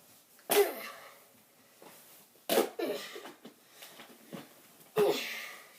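A child's voice making three short wordless vocal noises, each starting sharply and falling in pitch, about two seconds apart.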